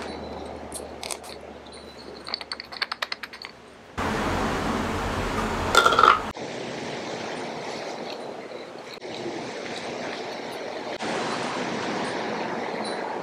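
Hand-work at a wooden table: a quick run of light clicks and clinks about two to three and a half seconds in, then a louder stretch of rustling handling noise with a sharp knock about six seconds in, over steady background hiss that changes abruptly at several cuts.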